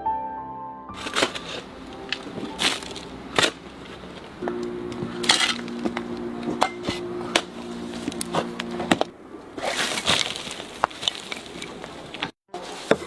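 Knife cutting into raw radish: a run of crisp, irregular cracks and clicks. A steady two-note tone sounds through the middle.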